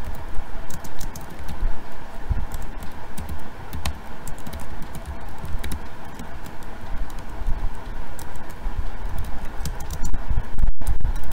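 Typing on a computer keyboard: irregular key clicks and dull thumps over a steady background hum.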